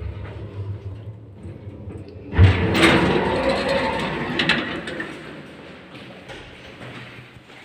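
Low hum of an MLZ passenger lift from about 1991, then a sudden loud knock of its automatic sliding doors about two and a half seconds in, followed by a couple of seconds of rattling door travel that fades away.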